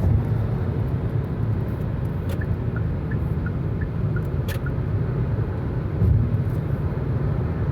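Steady low road and engine rumble inside a car's cabin at highway speed of about 85 mph, with a few faint clicks.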